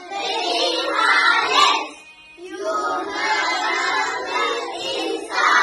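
A group of primary-school children singing together in unison, in long phrases with a short breath about two seconds in.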